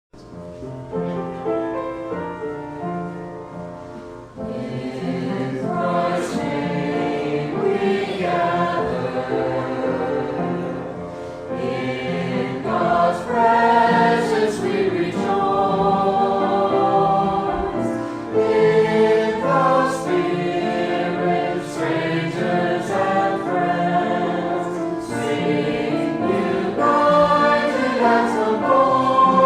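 Church choir singing, quiet at first and fuller from about four seconds in.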